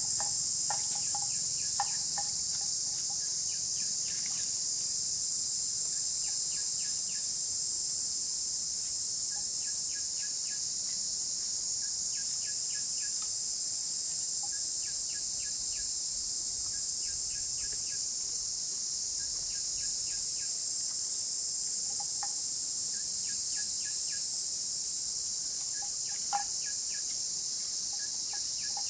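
Steady, high-pitched insect chorus, with a bird calling short runs of quick, repeated notes every few seconds.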